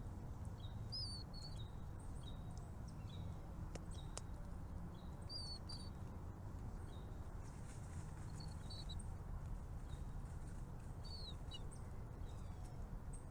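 Small birds chirping in short, high calls scattered throughout, over a steady low rumble.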